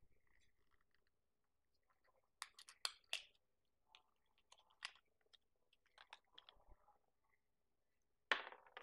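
Mostly quiet, with scattered faint clicks and crinkles of fingers handling tiny toy pieces and their packaging. A short, louder rustle comes near the end.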